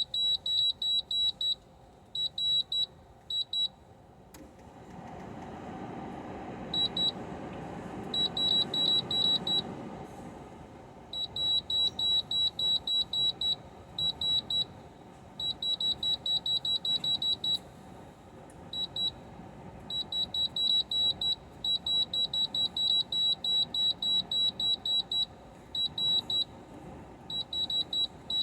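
Short, high electronic beeps, all on one pitch, in quick runs of about four or five a second with brief pauses between runs, as from a keypad or control panel beeping at each button press. A low rush of noise swells between about five and ten seconds in.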